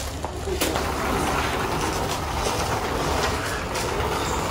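Steady background noise of a large store interior: an even low hum with a faint wash of distant activity and no distinct events.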